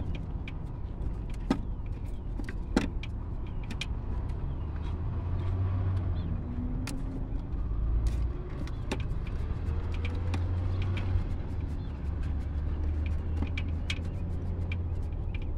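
Scattered light clicks and taps of fingers and a tool cleaning old thermal paste out of the mount where the ignition control module was removed, over a steady low rumble.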